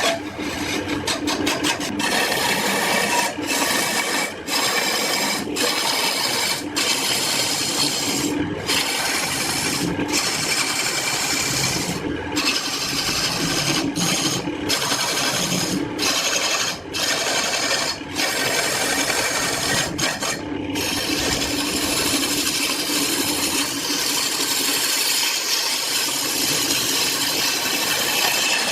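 Wood being worked with an abrasive tool: a steady rough scraping, broken by short breaks every second or two.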